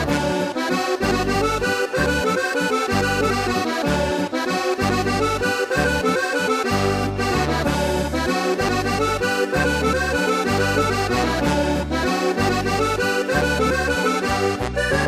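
Background music: accordion playing a folk dance tune, a Ländler medley, over a steady repeating bass.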